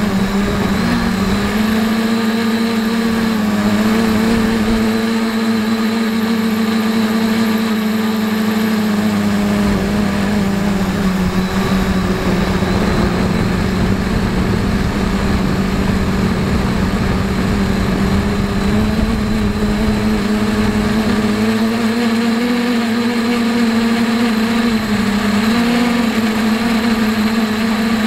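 Quadcopter motors and propellers buzzing in flight, heard from the camera mounted on the craft: a steady hum whose pitch wavers slightly with throttle. Wind rumble on the microphone grows heavier in the middle stretch.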